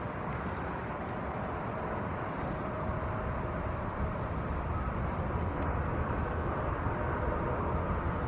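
Steady outdoor background rumble and hiss, even throughout, with no clear single source.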